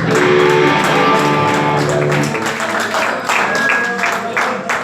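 Live rock band playing, with electric guitar and bass holding sustained chords. About halfway through the held notes stop, and scattered sharp hits follow.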